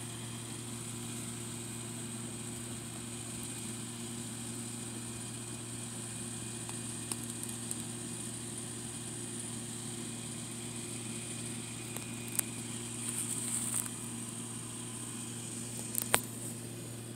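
A steady machine hum with a faint high hiss, unchanging throughout, and a few small clicks and rustles in the last few seconds, one sharp click near the end.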